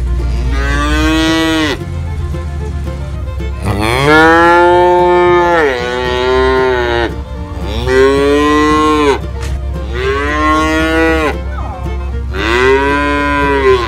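Cows mooing: five long moos in a row, each rising and then falling in pitch, the second one the longest.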